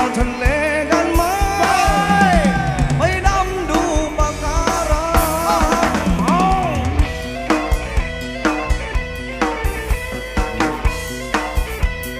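Instrumental band music: a lead instrument plays a melody of bending, sliding notes over a drum kit beat, and from about seven seconds in the drums carry on with the melody dropping back.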